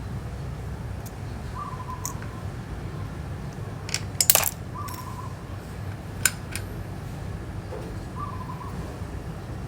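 Small sharp clicks and taps from hand tools working on the phone, the loudest a quick cluster about four seconds in, over a steady low hum. A short two-note bird call repeats three times, about every three seconds.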